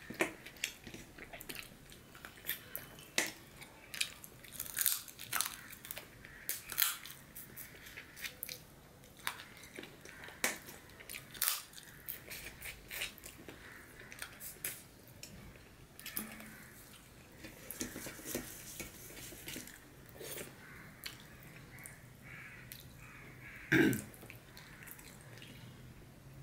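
Close-miked eating sounds of a man eating rice and chicken curry by hand: chewing with short wet mouth clicks and smacks in irregular bursts. One louder mouth sound comes shortly before the end.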